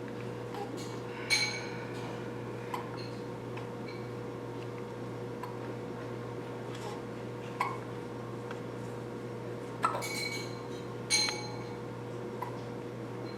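Hiccups: a handful of short, sharp hics at uneven gaps of one to six seconds, over a steady hum.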